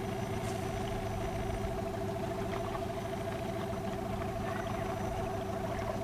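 Outboard motor of an inflatable boat running steadily, an even engine hum with no change in speed.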